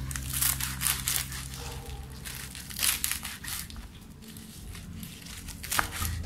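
Kitchen knife slicing through crisp choy sum stems and leaves on a wooden cutting board: a string of irregular crunching cuts, each ending as the blade meets the board.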